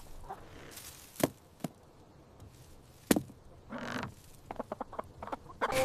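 Sparse faint clicks and knocks, single ones at first, then a quick run of them near the end, with a brief soft rustle just before four seconds.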